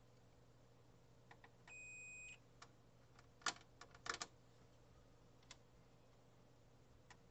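Digital multimeter on its continuity setting giving one steady beep for over half a second, about two seconds in: the probed dropper wire connects to the rail being touched. A few sharp clicks follow, the loudest about three and a half seconds in.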